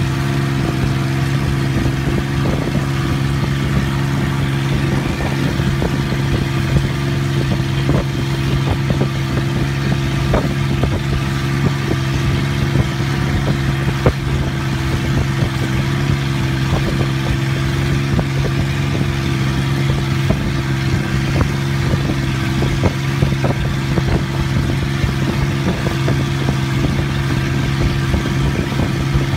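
Long-tail boat's engine running steadily at cruising speed, an even drone that holds one pitch, with occasional short knocks.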